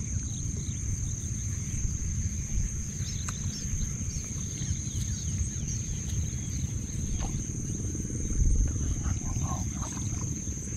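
Steady high-pitched insect drone from crickets or similar insects, over a low rumble that swells briefly about eight seconds in, with faint short chirps.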